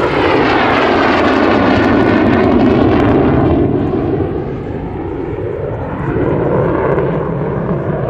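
MiG-17 fighter's afterburning turbojet running in afterburner as the jet flies past and away, a loud rushing jet noise with a sweeping, shifting tone. It eases off about three and a half seconds in and swells again near six seconds.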